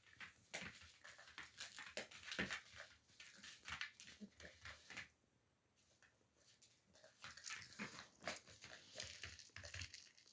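A puppy biting and mouthing a stuffed toy's voice box, making quick clicking, crinkling and chewing noises in two spells with a short quiet gap in the middle.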